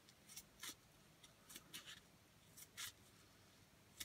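Scissors trimming a strip of tape: about eight short, faint snips and crinkles, coming unevenly.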